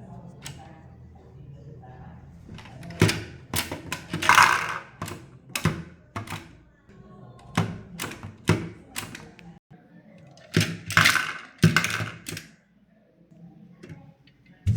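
Small plastic toys and their packaging being handled: a string of clicks and knocks, with two longer crinkling scrapes about four and eleven seconds in.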